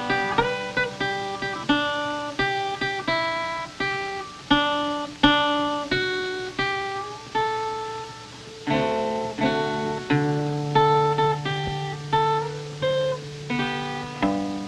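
Solo guitar music: single plucked notes picked out one after another, each ringing and fading, with a low bass note held for a few seconds past the middle.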